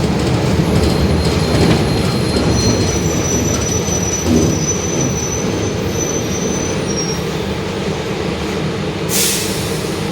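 Mercedes-Benz OF-1721 BlueTec 5 city bus under way, heard from inside: a steady low engine and drivetrain rumble with road noise and the growl of its differential. Faint high squeals come partway through, and a short hiss follows near the end.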